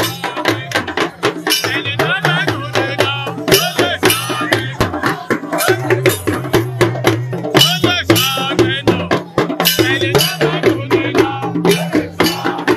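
Live Yoruba drumming and group singing: fast, dense hand-drum strokes under voices singing or chanting together.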